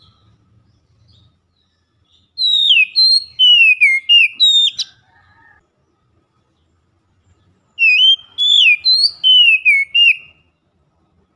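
Oriental magpie-robin (kacer) singing two loud phrases of clear whistled song, a few seconds apart. Each phrase is a quick string of sliding notes, most of them falling in pitch.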